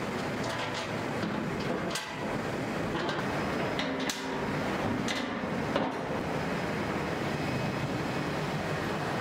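Steady mechanical din of factory machinery, with a few sharp metallic clinks as the steel mould sections and their clamps are handled.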